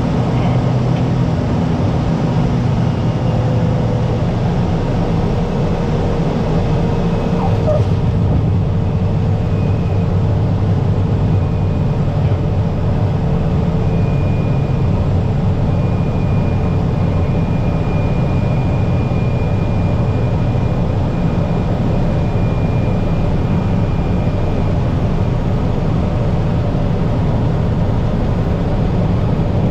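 Cessna 208B Caravan's PT6A turboprop engine and propeller running steadily during the landing rollout, heard from inside the cockpit as a loud drone with a faint high whine. A mid-pitched tone sinks slightly over the first third.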